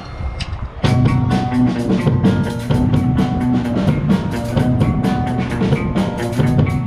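A live rock band starting a song: a couple of sharp clicks, like drumsticks counting in, then drums, electric guitar and bass come in together at full volume a little under a second in.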